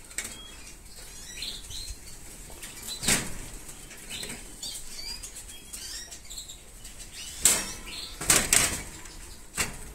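Canaries fluttering their wings against the wire of their cages in several short bursts, the loudest about three seconds in and again between seven and nine seconds. There are a few faint short chirps in between.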